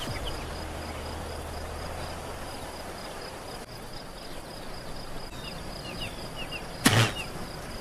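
Crickets chirping in a steady pulsing rhythm over a hiss of field ambience, with a few small high chirps, used as the comic 'waiting' sound. A single short, loud noise comes about seven seconds in.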